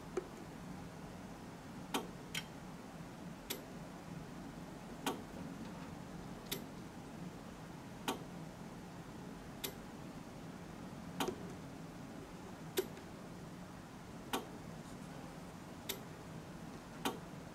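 Regular sharp clicks, about one every second and a half, from an OWON XDM3041 bench multimeter set to dual display, over a steady low hum.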